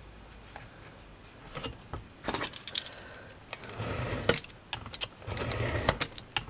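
Craft knife cutting thin chipboard along a steel ruler: a few clicks and taps, then several scraping strokes through the board in the second half.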